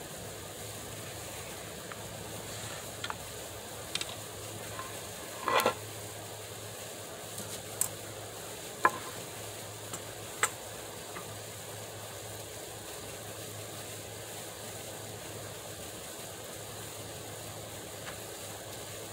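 A few scattered sharp knocks and clicks, the loudest a quick cluster about five and a half seconds in, over a steady hiss and low hum; nothing distinct in the second half.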